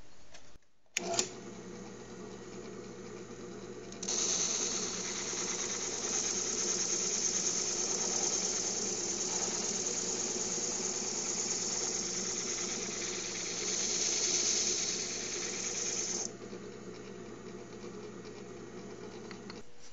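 Drill press spinning a homemade hole-saw drum sander, a steady motor hum. From about four seconds in a wooden workpiece is held against the sandpaper drum, adding a loud hiss of sanding. The hiss stops a few seconds before the end and the motor runs on alone.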